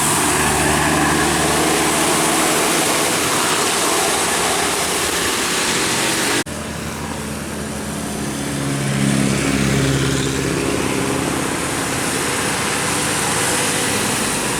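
Road traffic: vehicle engines running steadily. The sound breaks off abruptly about six and a half seconds in and resumes a little quieter, with low steady engine tones.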